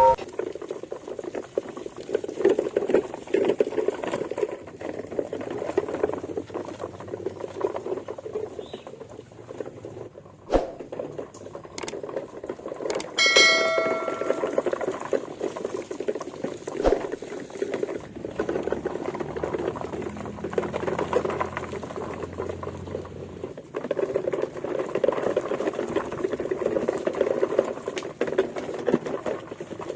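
A battery-powered toy train running along its plastic track, with a fast, steady rattle of small gears and wheels. A short high tone sounds about thirteen seconds in, and there are a few sharp clicks.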